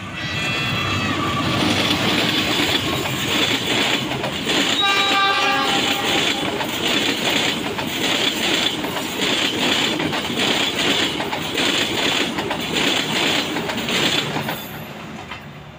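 Diesel-hauled passenger train passing close by. The locomotive's horn sounds about five seconds in. The coaches' wheels then clatter over the rail joints in an even rhythm, and the sound falls away near the end as the last coach passes.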